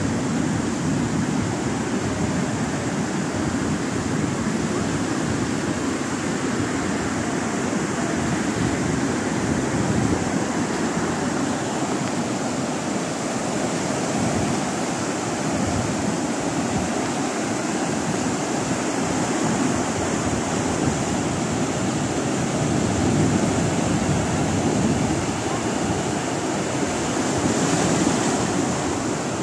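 Heavy ocean surf breaking and washing up a stony beach in a continuous rush, swelling louder as bigger waves come in a few times.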